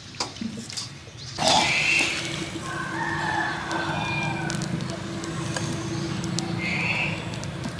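Rural outdoor ambience around a clay pot of water steaming on an open wood fire. About a second and a half in the sound steps up, with a steady low hum and a few short animal calls over it.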